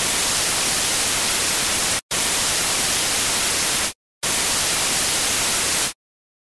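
Television static hiss: a loud, even rush of white noise, broken by two brief dropouts about two and four seconds in, that cuts off abruptly about six seconds in.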